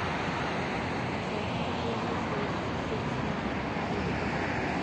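Steady rushing ambient noise, even throughout, with no distinct events.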